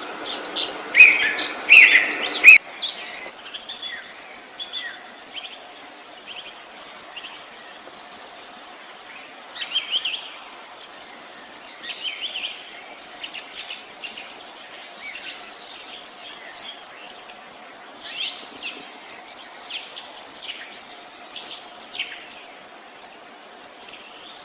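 Several songbirds singing, with many short chirps and repeated high trills over a faint steady background. Louder calls in the first couple of seconds stop abruptly.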